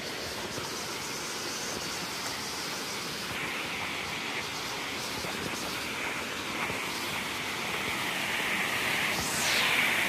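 Rushing water of a waterfall and the stream below it, a steady hiss that grows louder near the end.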